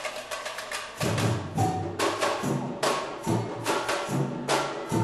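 Samba batucada drum section playing. For about the first second only the higher drums and tamborins are heard, then the surdo bass drums come in with a steady beat under them.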